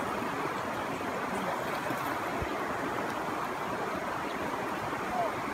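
River water rushing steadily in a fast current.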